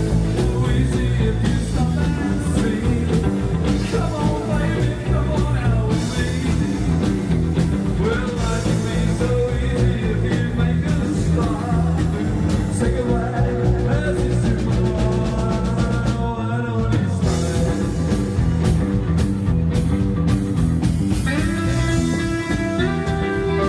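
A live rock and roll band playing an instrumental stretch, with electric guitar over bass and drums. About 16 seconds in, the low end drops out briefly. Near the end, held guitar notes ring out.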